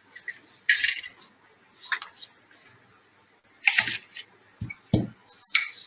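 Kitchen utensils being handled: a few short clinks and scrapes of a spoon and vessel, with two dull knocks just before the end, as sugar is added to water for dissolving.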